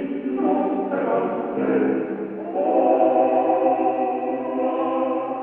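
Background music: choral singing in long held chords that change every second or so.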